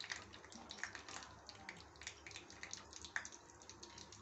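Chopped cashews frying in hot ghee in a small pan: a faint, irregular crackle of small pops and sizzle.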